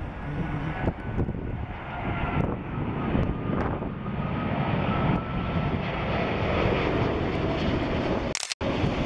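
Airbus A380's four Rolls-Royce Trent 900 jet engines at approach power as the airliner comes in low on final approach: a steady rumble with a faint whine that slowly falls in pitch. The sound drops out for a moment near the end.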